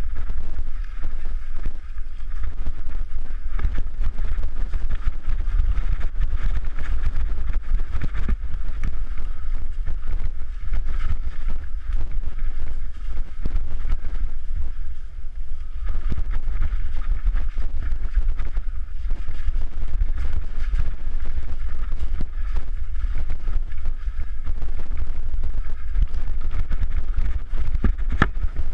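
Wind buffeting a GoPro's microphone as a mountain bike rides a rough, rutted ATV trail, a steady heavy rumble with frequent knocks and rattles from the bike jolting over bumps.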